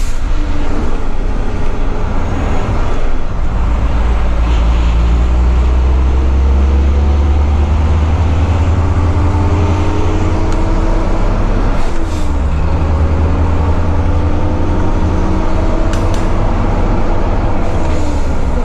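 Volvo FH12 480 truck's diesel engine pulling a heavy low-loader, heard from inside the cab. The engine note climbs steadily as the truck accelerates, then drops at a gear change about twelve seconds in and again near the end.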